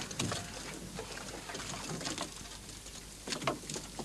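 Metal shovel scraping across a wooden boat's floorboards and scooping a load of wet fish, in a few separate scrapes and slaps, one at the start and another near the end.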